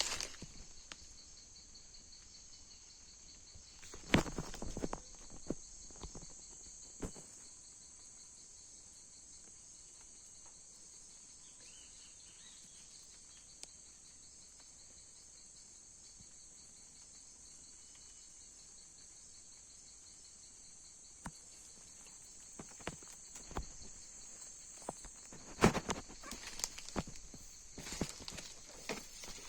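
Steady high-pitched chorus of insects, with a few short rustles and knocks about four seconds in and a cluster of them near the end.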